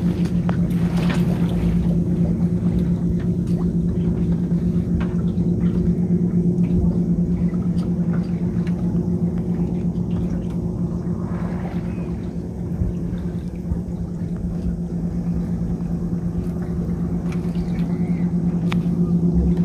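A steady low hum at one even pitch over the wash of water along a small sailboat's hull.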